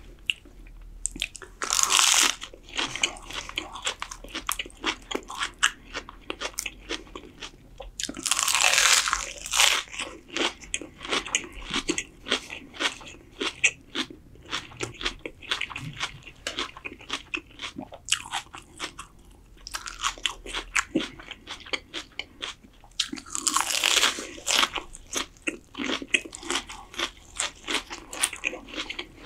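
Crisp lettuce leaves being bitten and chewed. There are three loud crunching bites, about 2, 9 and 24 seconds in, each followed by steady wet chewing crackle.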